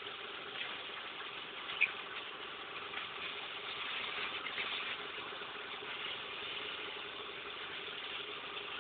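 The Frontera's 3.2 V6 24-valve DOHC 6VD1 engine idles steadily while water sprays over it with an even hiss. There is one short sharp click about two seconds in.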